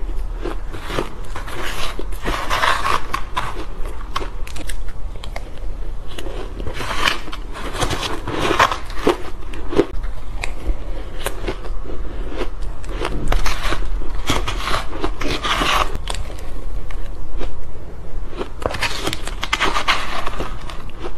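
Close-miked biting and chewing of soft, powdery crushed ice, heard as dense crunching in clusters every few seconds. Sharp clicks and scrapes fall between the clusters as a spoon digs into the ice in a plastic tray.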